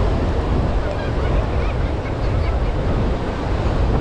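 Ocean surf washing steadily ashore, with wind rumbling on the microphone.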